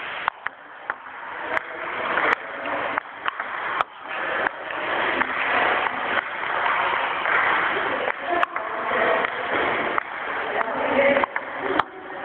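Table tennis balls clicking sharply against the paddle and table during repeated serve practice, a dozen or so irregular strikes. Behind them runs a steady din with voices.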